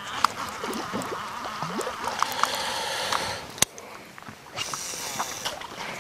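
Water and boat noises on a pond: light splashing and trickling with small knocks, rising twice into a rushing hiss, and one sharp click a little past halfway.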